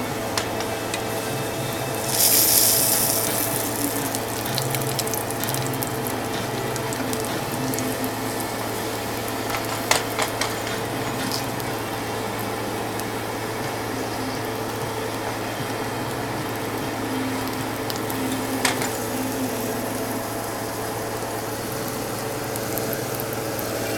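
Hot oil sizzling steadily in a frying pan as banana slices fry, with scattered sharp pops and a louder burst of hissing about two seconds in.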